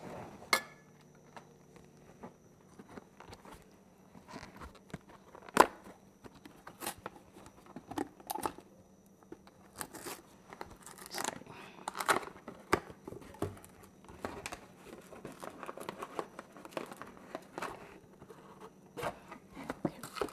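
Kitchen countertop handling sounds: scattered clicks and knocks, the loudest a sharp clack about five seconds in, and crinkling as a cardboard box of Glad cling wrap is handled and its plastic roll pulled out.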